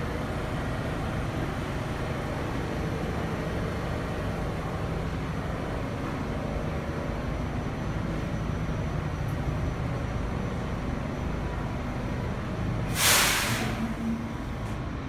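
A Pullman Standard R46 subway train standing in the station with its doors open, its equipment giving a steady hum. About thirteen seconds in comes one short, loud hiss of air from the train's air system.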